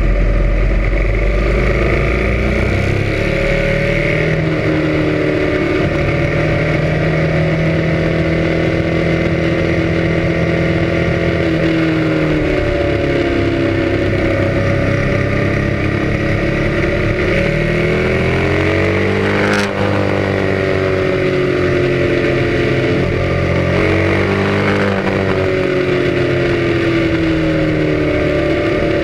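Motorcycle engine running at speed, its revs rising and falling again and again, with wind and road noise over it. A short click with a brief dip in the sound about twenty seconds in.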